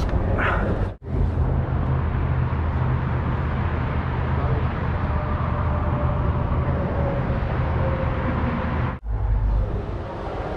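Steady outdoor background noise, a low rumble under an even hiss. It is cut off abruptly twice, about a second in and near the end.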